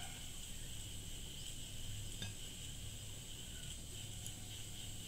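Quiet steady background: a constant high-pitched chirring over a low hum, with a soft click about two seconds in and another near four.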